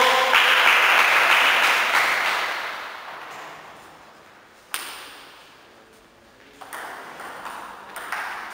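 Clapping after a point for the first two to three seconds, fading out. Then a single sharp tap of a table tennis ball about five seconds in, and quicker taps of the celluloid ball on bat and table near the end as a new rally starts.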